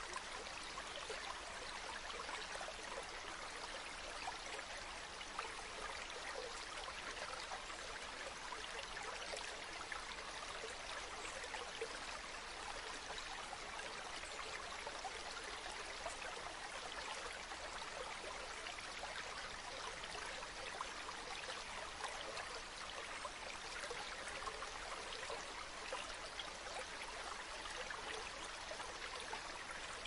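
A stream of water flowing with a steady, continuous rushing and babbling that does not let up.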